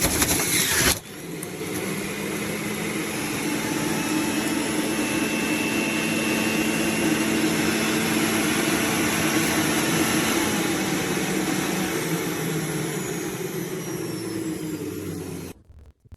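Electric juicer motor running steadily, with a loud, harsher burst in the first second, then stopping suddenly near the end.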